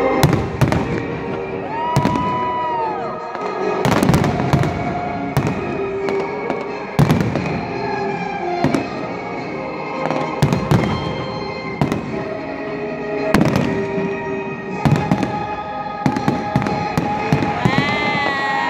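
Aerial fireworks shells bursting in a steady barrage, about one to two sharp bangs a second, with music playing underneath.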